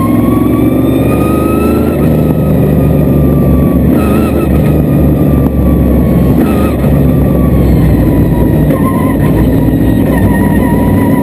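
Modified race car's engine heard from inside the cockpit, loud, revving up and down with the throttle while racing: its pitch rises for about two seconds, then falls off, with short pick-ups about four and six and a half seconds in.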